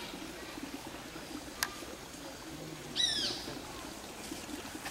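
A bird calling once, a short downward-sliding call about three seconds in, over a faint low background murmur, with a single light click shortly before.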